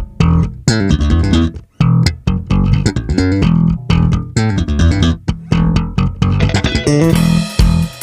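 Bass guitar and guitar playing a rhythmic, plucked groove with a strong bass line. A cymbal-like wash joins about seven seconds in.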